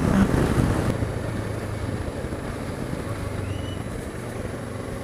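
Motorcycle engine running steadily while riding on a wet road, under wind and tyre noise on the microphone. There is a louder rush of wind in the first second.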